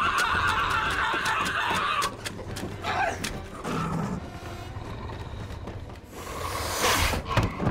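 A man screaming in a long, raw cry that ends about two seconds in. After that the track goes quieter, with a short cry near the middle and a surge of rushing noise near the end.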